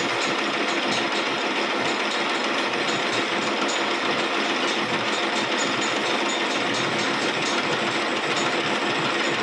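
A machine running steadily with an even, unbroken mechanical noise, typical of workshop work on a water pump shaft such as lathe turning or build-up welding.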